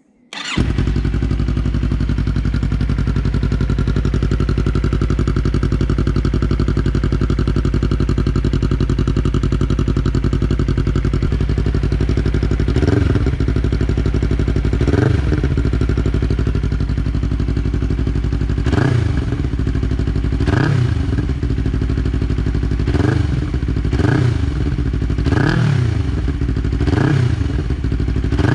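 Yamaha YZF-R3's 321 cc parallel-twin engine running through an Arrow Pro-Race full exhaust system with no muffler, at a steady pitch at first. From about halfway on, the pitch rises and falls briefly again and again, every second or two.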